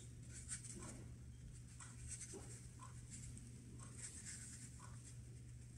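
Soft scratching swishes of a Chinese calligraphy brush on paper, a quick series of short strokes as small characters are written, faint over a steady low hum.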